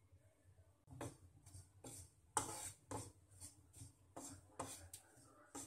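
Wooden spatula stirring and scraping roasting grated coconut and coriander powder around a nonstick pan: a run of short, faint scraping strokes, about two or three a second.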